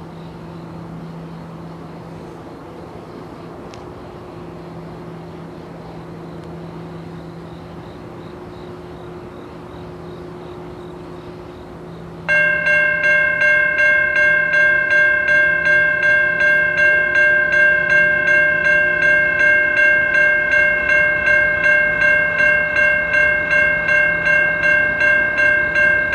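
Railroad grade-crossing bell starting suddenly about halfway through and ringing in a steady pulse of about three strokes a second as the crossing gates activate for an approaching train, then cutting off abruptly near the end. Before it there is only a low steady hum.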